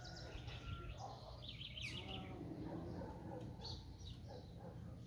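Papa-capim seedeater singing its 'tui tui zel zel' song: bursts of quick, high chirping notes, a fast run about a second and a half in and another short phrase near four seconds, over a low background hum.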